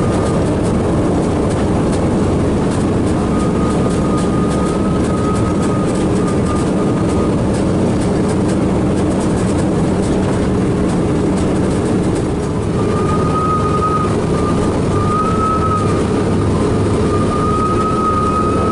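The four Wright R-1820 Cyclone radial engines of a B-17 Flying Fortress running steadily, heard loud from inside the fuselage as the bomber taxis. A thin high squeal comes and goes over the engine noise, stronger in the second half.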